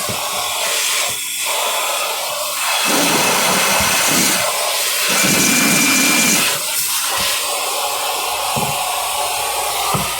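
Vacuum cleaner running steadily, its airflow swelling louder from about three seconds in to six and a half as the nozzle works, with a brief thin whistle near the middle.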